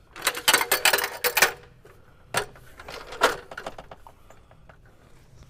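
Fiberglass extension ladder clanking and rattling as it is lifted and moved along the wall: a quick run of metallic knocks in the first second and a half, then two single knocks about a second apart.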